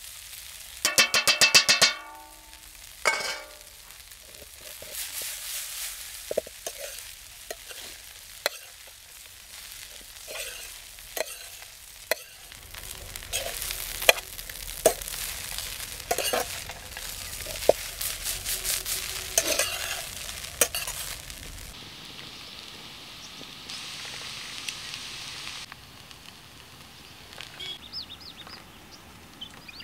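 Steel spatula scraping and clacking against an iron kadai as poha is stirred over a wood fire, with a light sizzle from the pan. It opens with a loud, rapid rattle of metal strokes, and the scrapes and clicks come irregularly for about twenty seconds before dying down.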